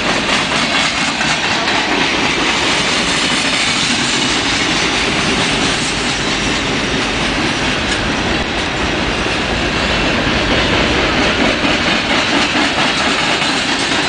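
Union Pacific freight train's cars rolling past, a loud, steady noise of steel wheels running over the rails.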